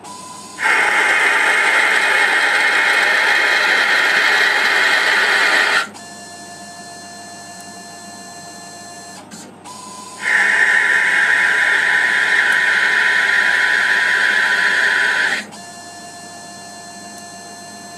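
Emco PC50 CNC lathe making two automatic threading passes along a brass rod, each a loud machine noise lasting about five seconds as the tool feeds along the thread. Between the passes there is a quieter steady hum with faint tones.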